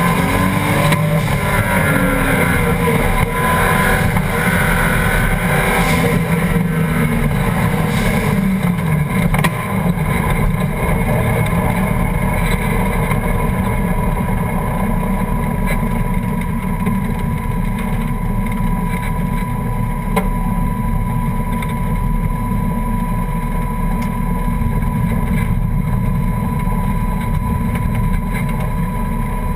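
Ford Escort's swapped-in Toyota 1JZ inline-six engine heard from inside the car, revving up and down for the first several seconds, then running at a steady, lower speed from about nine seconds in.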